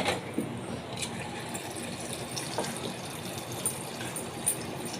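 Battered chicken pakoda pieces deep-frying in hot oil: a steady sizzle with a few scattered crackles.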